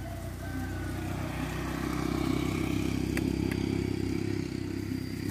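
A motor engine running steadily, growing louder through the middle and easing off near the end, with a couple of sharp clicks about three seconds in.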